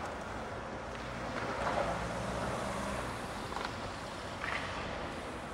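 Street traffic noise: a passing vehicle's tyre and engine sound swelling and fading about two seconds in, over a steady street hum, with a few faint knocks later.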